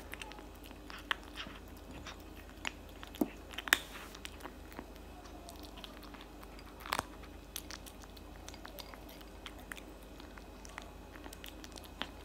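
Tabby kitten chewing and biting cat food from a plate, with irregular small crunches and clicks, a few of them louder.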